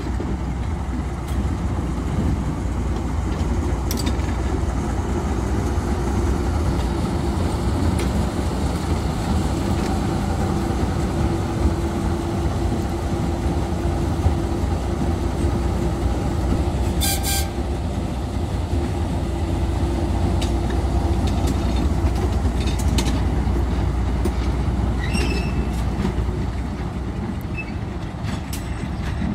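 TU2 narrow-gauge diesel locomotive running past at low speed: a steady low engine rumble that fades a little near the end as it moves away. A brief sharp sound cuts in about two-thirds of the way through.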